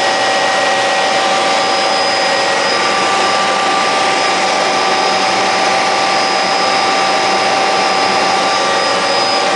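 Cabin noise of an MD 500 helicopter in flight: the Allison 250 turboshaft's steady whine over a constant rush of rotor and airflow, heard from inside the cockpit.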